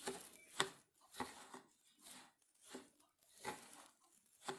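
Steel spoon stirring a dry mix of semolina, grated fresh coconut and sugar in a stainless-steel container, scraping through the mix and against the metal in about seven short strokes, a little faster than one a second.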